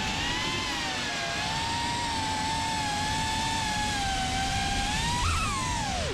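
FPV quadcopter's brushless motors and propellers whining, the pitch wavering with throttle, then jumping up and swooping steeply down near the end as the throttle is chopped.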